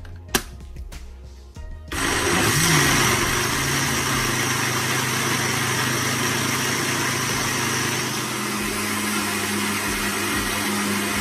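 Countertop jug blender switched on about two seconds in and running loud and steady, churning a thick okra punch mixture; its motor hum steps up in pitch about eight seconds in. A sharp click comes just before, as the lid is set on.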